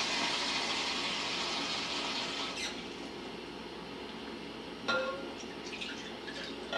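Kitchen faucet running into a glass measuring cup, shut off about two and a half seconds in. Then a ringing glass clink, and water poured from the cup into a glass mixing bowl, with another light clink near the end.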